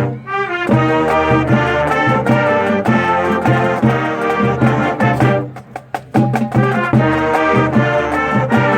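Honors band playing an up-tempo piece, with brass carrying sustained chords over a steady bass line. The band drops out briefly a little over halfway through, then comes back in full.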